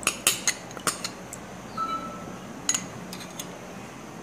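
Kitchen bowls and utensils clinking and knocking. A quick run of sharp clicks comes in the first second, a brief ring about two seconds in, and a few more clicks near three seconds.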